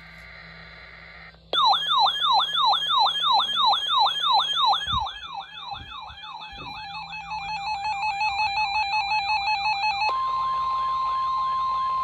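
RadioShack NOAA weather alert radios sounding their alarms for a severe thunderstorm watch: a fast falling siren sweep repeating about three times a second, with a higher warbling alarm over it, starts about a second and a half in. Near the end the sirens stop and a single steady tone holds: the NOAA Weather Radio warning alarm tone.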